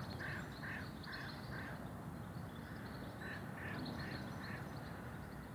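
Birds calling: one bird gives a run of short repeated calls, about two or three a second, in two bouts, with fainter higher chirping from other birds behind it.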